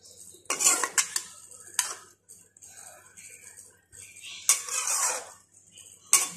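A cooking utensil knocking and scraping against a pot in several short bursts, with one longer scrape near the end, as food is stirred.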